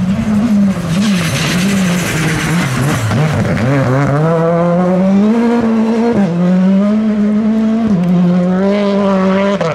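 Rally car's engine working hard on a gravel stage: the revs rise and fall through a corner, then it pulls and shifts up twice, about six and eight seconds in. Gravel hisses under the sliding tyres in the first few seconds.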